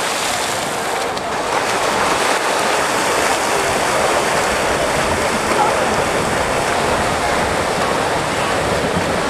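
Steady wash of splashing from several swimmers racing freestyle side by side, with shouting voices mixed in.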